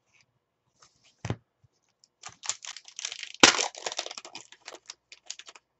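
Foil trading-card pack wrapper being torn open and crinkled in the hands: a dense run of crackling from about two seconds in, with one sharp crack near the middle. A single light knock comes about a second in.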